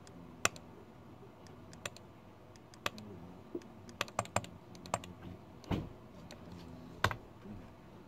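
Typing on a computer keyboard: scattered, irregular keystrokes, a few louder than the rest, over a low steady hum.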